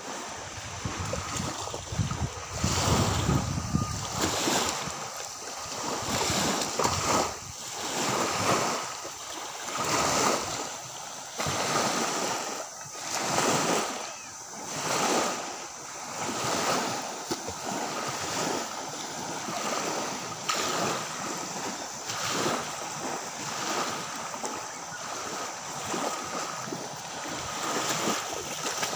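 Small waves lapping onto a sandy beach, the wash rising and falling every second or two.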